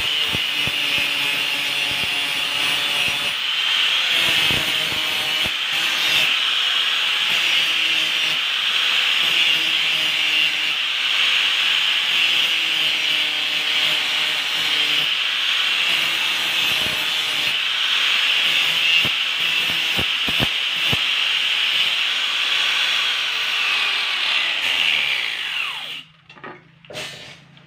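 Handheld angle grinder grinding along the steel blade of a bolo machete, a steady high whine with the disc rasping against the metal. Near the end it is switched off and the whine falls away as the disc spins down.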